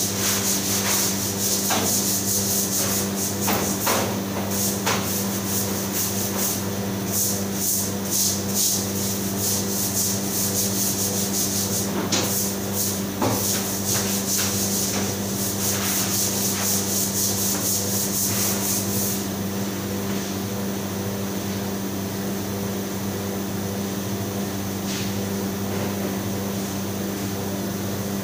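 Brush scrubbing in quick, uneven strokes, stopping about two-thirds of the way through, over a steady hum of commercial kitchen refrigeration and ventilation equipment.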